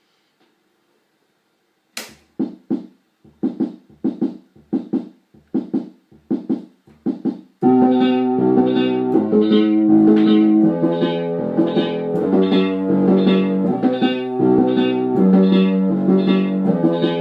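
Orla Carousel vintage electronic keyboard playing. About two seconds in comes a run of short, plucked-sounding notes, a little over two a second; from about seven and a half seconds, fuller held chords over a low bass line take over.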